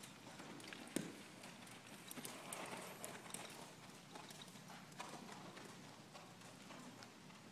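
Horse loping on the soft dirt footing of an indoor arena: faint hoofbeats, louder as the horse passes close between about two and three seconds in, with one sharp knock about a second in.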